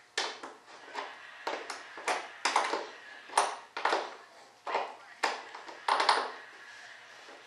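Edge of a resin-and-fiberglass part being abraded by hand in short back-and-forth strokes, about two scraping rasps a second.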